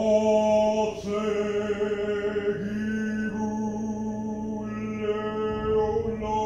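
A single voice intoning a divine name in the ritual's vibrated chant: one long tone held at a steady pitch, its vowel sound shifting from syllable to syllable, over dark ambient music.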